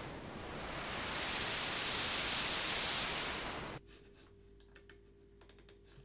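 Synthesized white-noise riser playing back: a hiss that swells louder and brighter for about three seconds, then drops off sharply and dies away within a second. After that it is near quiet apart from a few faint clicks.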